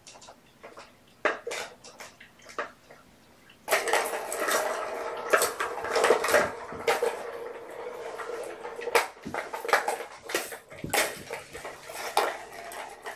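Plastic balls rattling and rolling around the tracks of a tiered cat track-ball toy as a kitten bats at it. Scattered clicks at first, then about four seconds in a continuous clattering rumble with sharp clicks.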